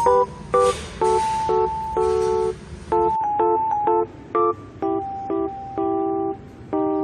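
Background music: a light instrumental track of plucked and keyboard-like notes in short repeated chords with a simple melody.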